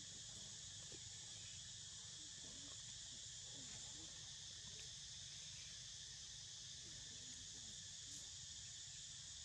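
Faint, steady high-pitched chorus of insects with no breaks.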